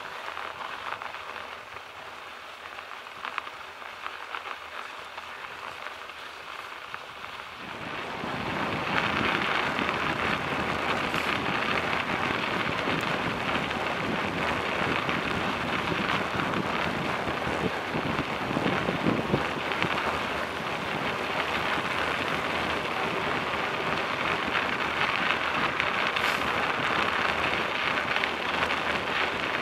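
Bicycle tyres rolling over snow, a steady hiss that becomes louder about eight seconds in.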